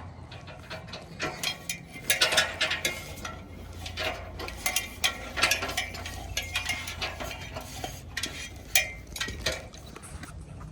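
A run of irregular clicks and rattles over a steady low hum.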